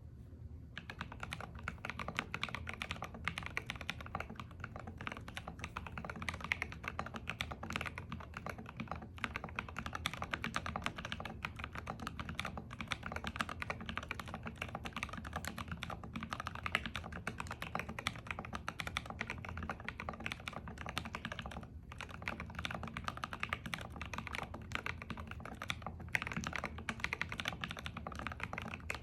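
Continuous typing on the ai03 x Holten Meridian 60% ergonomic mechanical keyboard, with linear switches, SA-profile keycaps and an aluminium plate: a dense, steady stream of keystroke clacks. It starts just under a second in and has two brief pauses.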